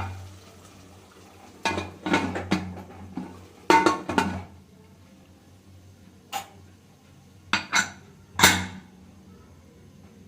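Kitchen dishes and utensils clattering: a few separate bursts of clanks and scrapes, the loudest one about eight seconds in, over a steady low hum.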